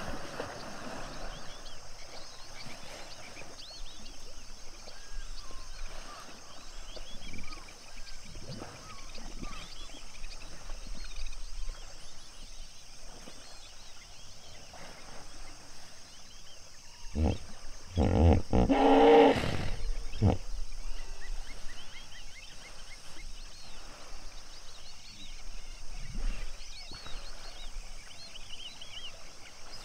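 Hippopotamus calling: a run of about six deep grunts and honks, loudest about nineteen seconds in, over a steady background of faint high chirping.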